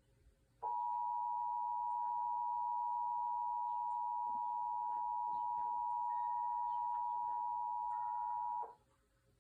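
Emergency Alert System attention signal: the two-tone alert (853 Hz and 960 Hz sounded together), a steady dual tone lasting about eight seconds that starts just under a second in and cuts off suddenly near the end. It announces the alert message that follows, here a flood warning.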